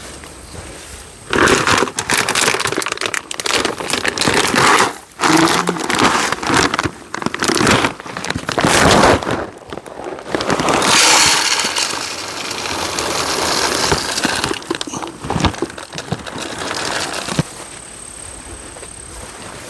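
Loud, irregular rustling and crackling close to the microphone, like material being crumpled and handled, with many sharp clicks; it begins about a second in and dies down near the end.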